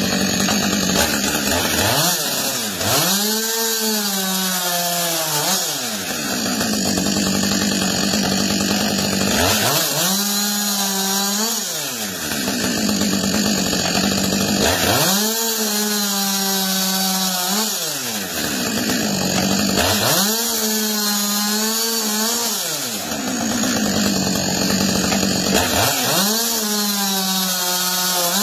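Husqvarna chainsaw running hard in a chainsaw mortiser jig, cutting a mortise into a timber post. Its engine note dips and recovers in a regular cycle about every five to six seconds, five times over, as the bar is worked into the wood and eased back.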